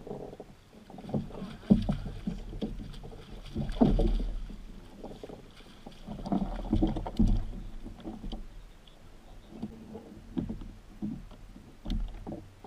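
A large hooked rainbow trout splashing and thrashing at the surface beside a kayak as it is scooped into a landing net, with water sloshing and knocks of the net and gear against the kayak's hull. Irregular splashes and thumps come and go, loudest about two and four seconds in and again around seven seconds.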